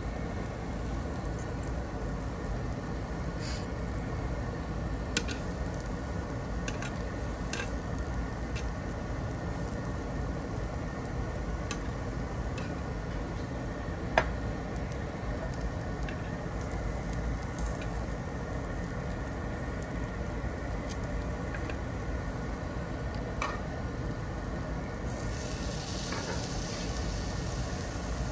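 Food sizzling steadily on a tabletop barbecue grill, with scattered light clicks of utensils; the sharpest click comes about halfway through. A brighter hiss joins near the end.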